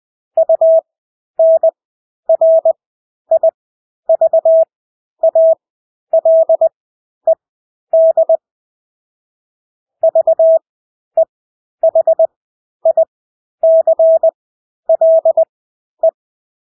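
Morse code (CW) sent at 20 words per minute with Farnsworth spacing: a single steady mid-pitched beep keyed in short dits and longer dahs, letters set apart by stretched gaps, with a longer pause about halfway through.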